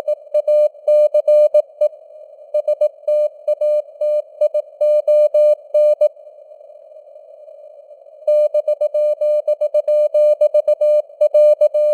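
Morse code (CW) sent at 18 words per minute as a single steady tone keyed on and off in dots and dashes, over a constant hiss of simulated radio band noise. The sending stops for about two seconds in the middle, leaving only the hiss, then resumes.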